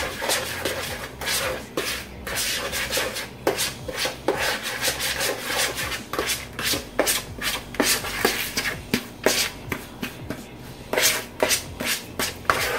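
Spoon scraping and stirring a thick parmesan, herb and olive-oil seasoning mix in a plastic mixing bowl: a steady run of short rubbing strokes, about two a second.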